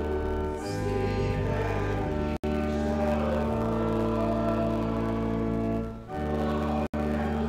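Choir singing a hymn with pipe organ accompaniment: sustained chords over deep pedal bass notes, changing every second or two. The sound drops out for an instant twice.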